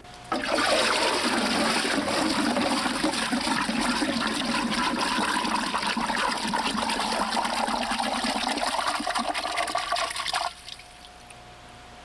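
Water rushing and sloshing in a barrel as it is stirred by hand and with a wooden stick into a vortex. The steady rushing cuts off suddenly about ten seconds in.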